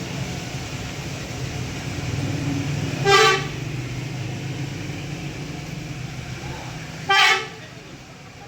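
Two short vehicle horn honks about four seconds apart, the loudest sounds here, over a steady low hum that fades after the second honk.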